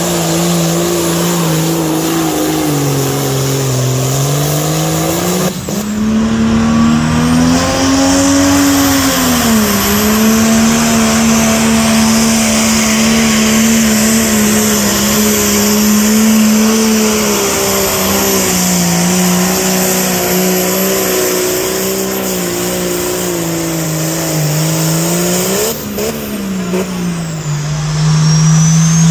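Diesel pulling tractors running at full throttle while hauling a weight sled down the track, loud, with the engine pitch sagging and climbing again. Two abrupt cuts, about six seconds in and near the end, switch from one pull to another.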